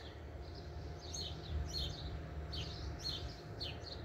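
A small bird chirping over and over, about two short, quick, falling chirps a second, over a low steady hum.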